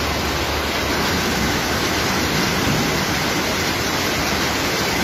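Floodwater rushing fast down a street, a steady loud wash of churning water.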